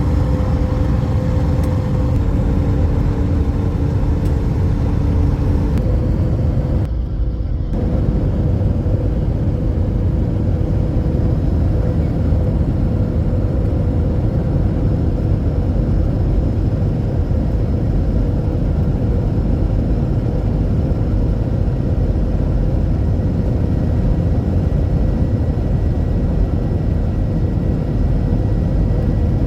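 Airliner cabin noise in flight: the steady, loud rumble of the jet engines and airflow, with a few steady hum tones. It breaks off briefly about seven seconds in, then resumes.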